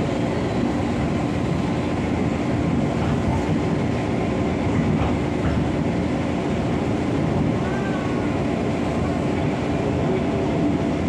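KRL Commuter Line electric train running along the track, heard from inside the carriage: a steady rumble of wheels on rails with a steady hum underneath.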